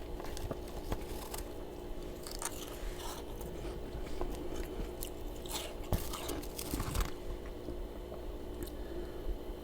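Close-up biting and chewing of freezer frost: crisp, irregular crunches, coming in clusters and busiest a little past halfway, over a faint steady hum.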